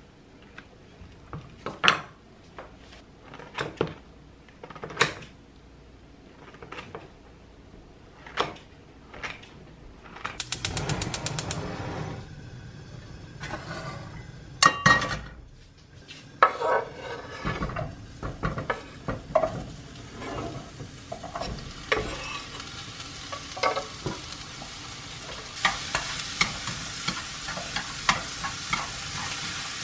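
A knife cuts through a red bell pepper and mushroom with scattered knocks on a wooden cutting board. A brief rapid rattle comes about ten seconds in. Then a pan clatters on the gas hob, and chopped pepper and mushroom sizzle in a little oil while being stirred, the sizzling growing louder toward the end.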